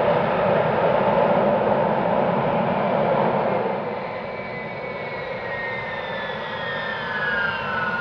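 Ilyushin Il-78 tanker's four Soloviev D-30KP turbofans in reverse thrust after landing: a heavy, steady roar that drops off a little under four seconds in, then the engines' whine falling in pitch as they spool down out of reverse.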